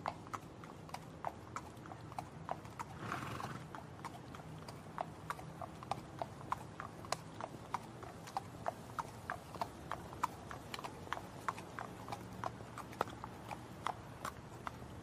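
Hoofbeats of a galloping horse: quick, uneven clopping at roughly four beats a second over a low rumble, with a brief breathy noise about three seconds in.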